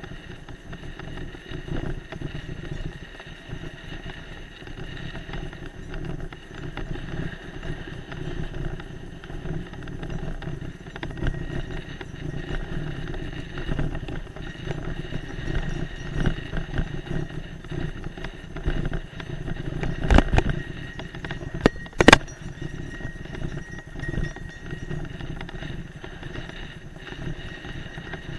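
Mountain bike riding fast down a loose dirt road: knobby tyres crunching on gravel, with the bike rattling continuously over the bumps. Two sharp knocks about two seconds apart land in the last third, the second the loudest.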